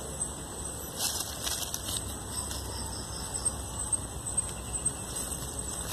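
Dry leaves and feathers rustling as a green-winged dove is picked up and handled on the forest floor, with scattered small crackles and clicks.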